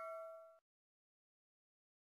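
The ringing tail of a bell-chime sound effect, the notification-bell 'ding' of a subscribe animation, fading out about half a second in, then dead silence.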